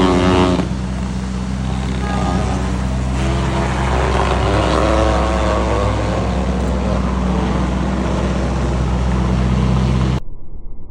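Lamborghini Urus twin-turbo V8 idling, a steady low drone that cuts off suddenly near the end.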